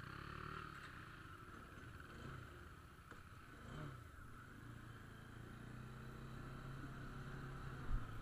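Motorcycle engine running at low speed while riding off, its note rising and falling briefly twice before settling into a steady hum. A short low thump comes near the end.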